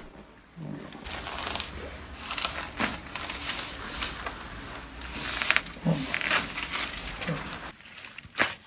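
Neck joints cracking during a chiropractic rotary-break adjustment: several sharp pops, loudest about five and a half seconds in and again near the end, over rustling of clothing and the treatment table. A few short low vocal sounds from the patient are mixed in.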